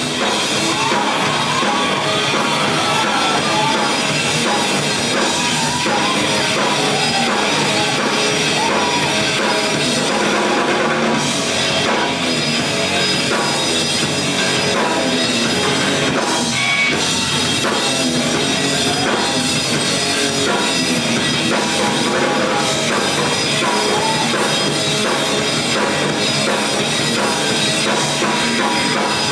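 Rock band playing an instrumental passage, led by the drum kit, with no singing.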